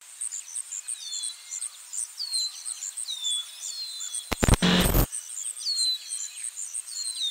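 Birds calling: a high call that slides down in pitch repeats roughly every second, over a fast, even, very high chirping. About four seconds in, a loud burst of noise lasts under a second.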